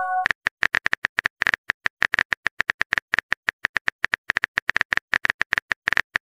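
Phone keyboard typing sound effect: a quick, slightly uneven run of short clicks, about eight a second, as a text message is typed out.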